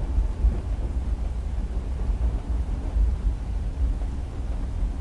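Low, continuous rumble of a train running, heard from inside the carriage, its level swelling and easing slightly.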